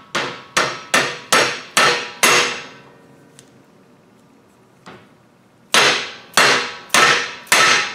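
Mallet blows on a metal driver die, driving a sealed bearing down onto the cement mixer's spindle. About six quick strikes ring out, then a pause of about three seconds with a faint click or two, then four more strikes near the end.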